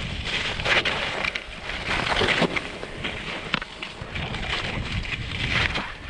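Wind rumbling on the microphone, with irregular swells of hiss over it.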